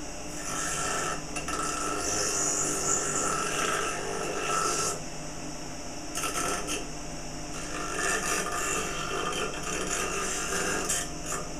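Electric bench grinder running steadily while a block of wood is pressed against its grinding wheel, giving a rasping grind that stops and starts over several passes.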